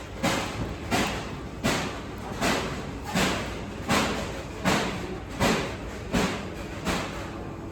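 About ten evenly spaced thuds, roughly one every three-quarters of a second, each sharp at the start and dying away quickly.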